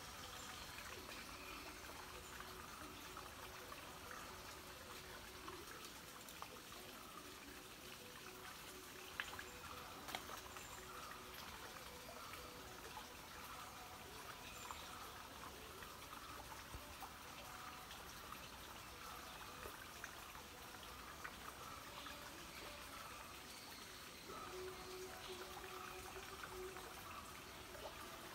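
Faint ambience at a pond: a light trickle of water, with a few soft ticks about nine and ten seconds in.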